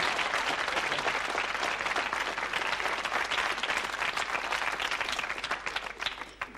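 Studio audience applauding, the clapping thinning out near the end to a few scattered claps.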